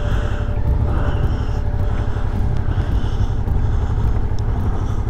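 Suzuki V-Strom 650 motorcycle under way, its V-twin engine running at a steady pace as a continuous low rumble.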